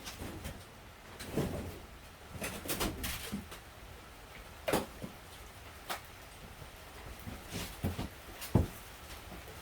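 Irregular knocks and clunks of objects being shifted and handled while someone rummages through stored things, with the loudest thud near the end.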